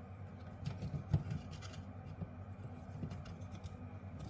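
Quiet clicks and light scraping of hand tools working at a backup power supply's circuit board to free it, with one sharper knock about a second in.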